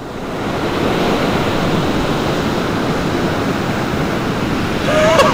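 Ocean surf breaking and washing onto a sandy beach, a steady rush that swells in over the first second. A person's voice starts near the end.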